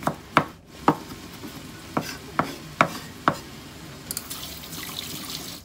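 Chef's knife chopping garlic cloves on a wooden cutting board: about seven sharp, uneven knocks of the blade on the board, then a faint hiss near the end.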